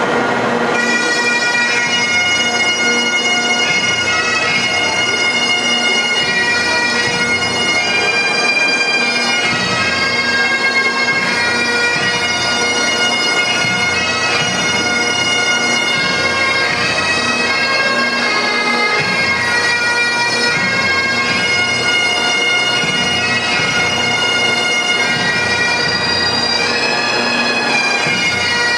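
Scottish pipe band of Great Highland bagpipes and drums playing a tune, the melody moving over the steady pipe drones, coming in about a second in.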